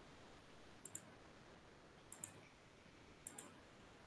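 Faint computer mouse button clicks: three quick press-and-release clicks about a second apart.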